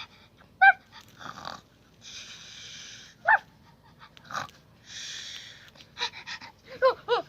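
A child making pretend sounds with the mouth: a few short, high dog-like yips and two long breathy hisses like exaggerated sleeping breaths.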